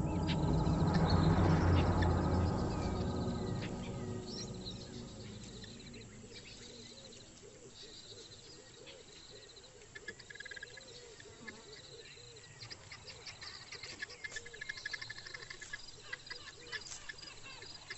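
Low background music fading out over the first few seconds, giving way to a bush ambience of chirping bird calls and insect trills. Scattered sharp clicks and crackles come in from about ten seconds in.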